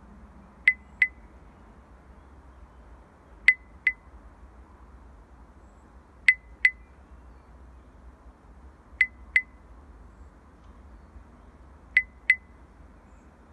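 A heartbeat rhythm made of short, sharp, high-pitched electronic ticks in pairs, like a lub-dub: five double ticks, one about every three seconds, over a faint low hum.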